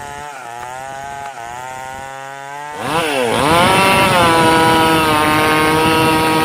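A buzzing, chainsaw-like drone that dips and swoops in pitch, then jumps much louder about three seconds in and holds steady.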